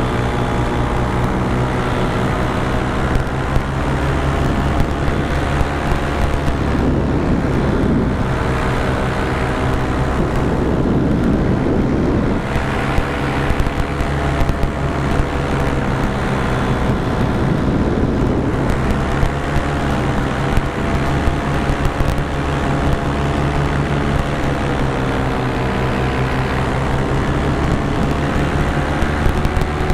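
Paramotor engine and propeller running steadily in flight, its pitch drifting slightly up and down as the throttle changes.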